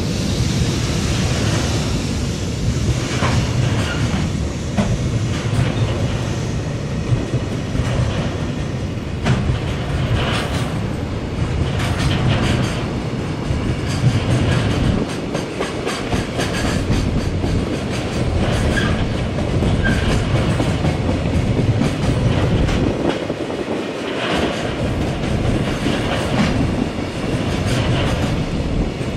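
Freight train passing close by: a long string of wagons running along the track, with wheels clicking over rail joints again and again.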